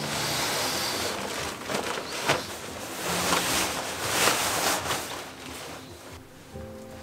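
Bivy bag fabric rustling and crinkling as it is pulled out, shaken open and spread over an inflatable sleeping mat, busiest in the first five seconds and then dying down. Music comes in near the end.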